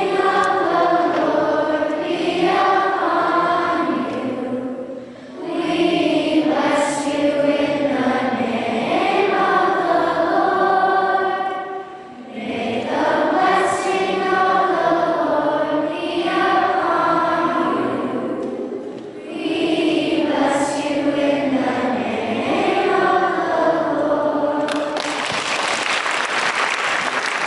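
A large group of schoolchildren singing a song together in four phrases with short pauses between them, followed by applause breaking out near the end.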